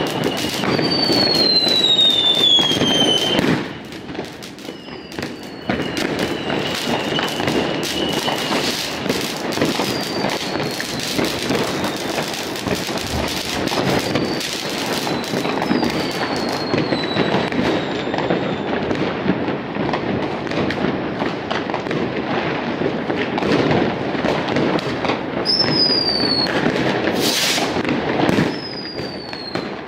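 Fireworks and firecrackers going off in a dense, continuous barrage of bangs and crackling, with several whistling rockets whose whistles fall in pitch. The barrage eases briefly about four seconds in, then picks up again.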